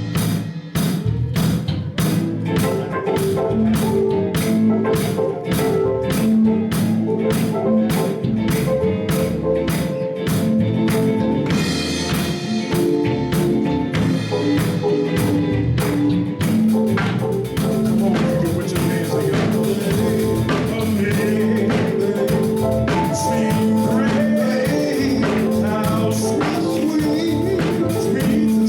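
Live gospel band music with a steady drum beat of about two hits a second under sustained keyboard and bass notes; the drumming gets busier about sixteen seconds in.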